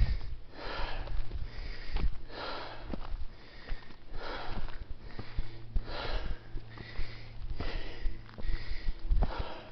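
A hiker breathing hard and sniffing while climbing, a breath in or out every one to two seconds, with faint ticks of footfalls.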